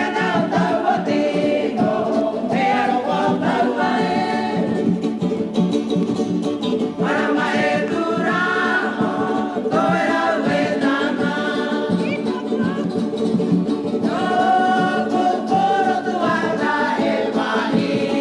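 Polynesian music: a group of voices singing together over steady sustained lower tones, phrase after phrase without a break.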